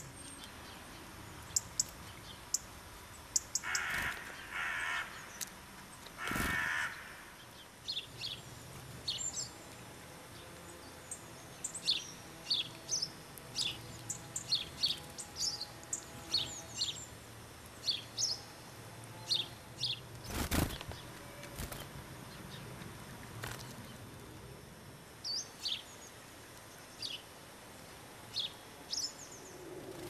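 A crow caws three times in the first seven seconds. After that, small birds give many short, high chirps and calls, with two sharp knocks a little after the middle.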